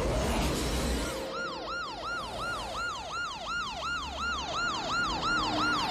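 Police car siren in a fast yelp, each wail rising and falling about three times a second, starting about a second in. A low rumble comes before it.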